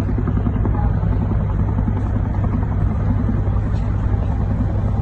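A steady low engine drone running without a break, its energy heavy at the low end.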